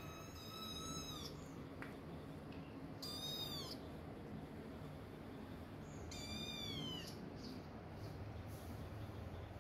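Kittens meowing: three high-pitched mews, each under a second and dipping at the end, about three seconds apart.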